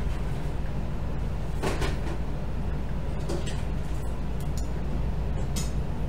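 Cables and parts being handled inside a desktop PC case: a few short rustles and knocks over a steady low hum.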